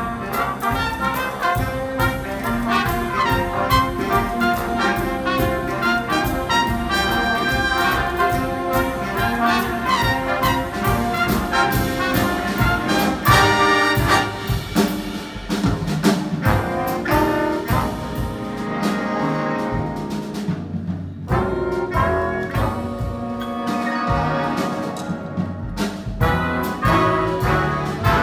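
Live big-band jazz: a brass section of trumpets and trombones playing over upright bass and a steady beat.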